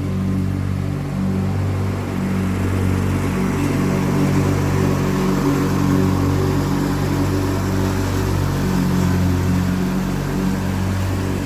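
Riding lawn mower engine running steadily, its low hum swelling and easing slightly every second or two.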